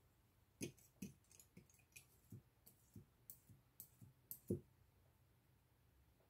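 Metal nib of a dip pen clicking against the rim and inside of an ink bottle as it is dipped: about a dozen quick light clicks over some four seconds, the last one the loudest.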